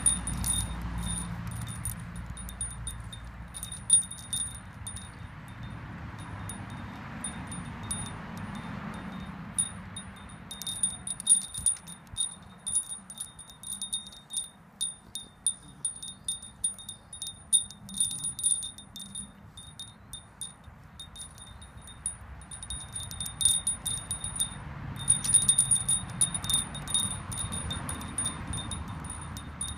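Small metal-rod wind chime clinking and ringing at two high, bright pitches in irregular flurries, with the rods knocked about by a bulldog puppy's head and mouth. The flurries are busiest in the middle and near the end.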